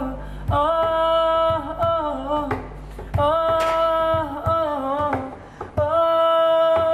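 A solo voice sings an Arabic song of longing for the homeland, unaccompanied, holding long wavering notes in about four drawn-out phrases with short breaths between them.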